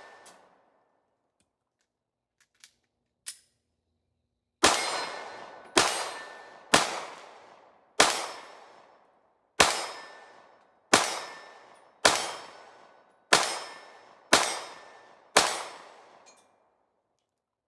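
A string of ten 9mm gunshots fired about a second apart, each sharp crack followed by a ringing tail of about a second. Two light clicks come just before the string.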